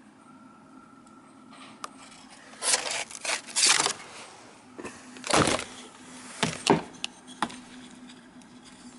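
Parts being handled and rummaged through: a run of short clattering and scraping noises, several loud ones, in the middle few seconds.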